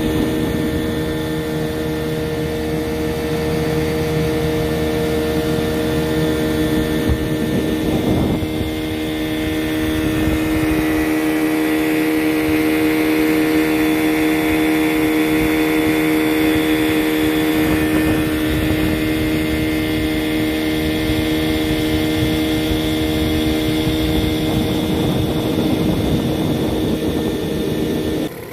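A Johnson 15 hp two-cylinder two-stroke outboard runs at a steady speed under way, with water rushing past the hull. The engine is on a test run after a new water pump was fitted.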